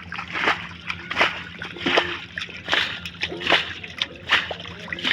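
Shallow pond water splashing in a regular rhythm, about one splash every three quarters of a second, as someone moves through it.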